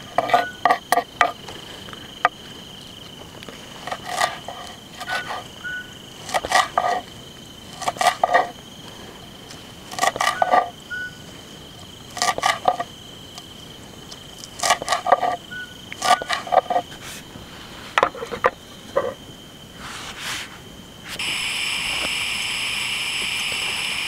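A chef's knife chopping green stalks on a wooden cutting board, in short bursts of several quick chops every second or two, over faint steady chirring of crickets. Near the end a louder steady high-pitched sound takes over.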